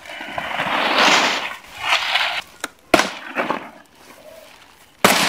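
Dry coconut palm fronds rustling and crackling as a frond stalk is pulled and dragged out of a heap, with a few sharp snaps about three seconds in and a loud crack near the end.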